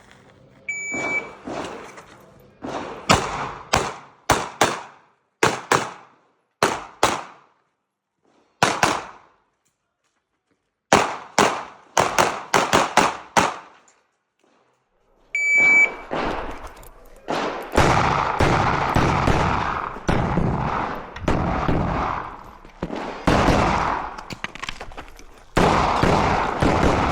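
An electronic shot timer beeps its start signal, and a Glock 47 9mm pistol fires in quick pairs and strings, with a pause of about two seconds partway through. A second timer beep comes about 15 seconds in, followed by a faster, denser run of shots with echo that runs on to the end.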